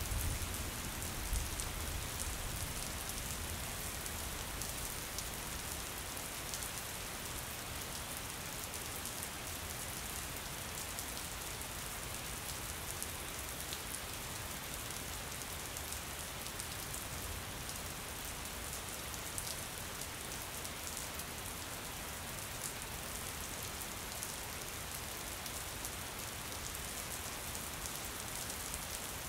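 Steady rain on window glass: an even hiss of many small drops striking the pane. A low rumble fades away over the first few seconds.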